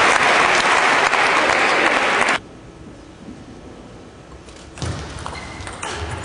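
Spectators clapping after a table tennis point; the applause cuts off abruptly a little over two seconds in. Near the end, sharp taps of the celluloid ball and players' footsteps return as play resumes.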